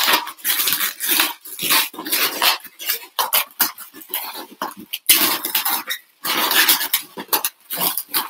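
Latex modelling balloons squeaking and rubbing against each other in irregular bursts as they are twisted and pressed into shape.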